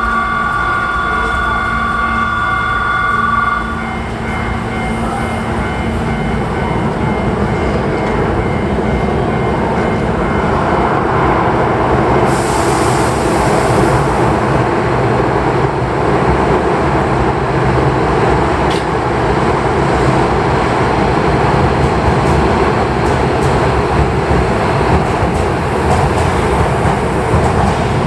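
Electric commuter train departing an underground station platform, its running noise building as it pulls away and gathers speed. It opens with a steady two-tone electronic signal that stops about four seconds in, and there is a short burst of hiss in the middle.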